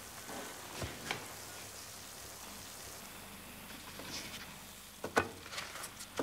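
Oil sizzling steadily in a frying pan as pieces of dough fry, with a few clicks of a fork against the pan about a second in. Near the end there are a few sharper clicks.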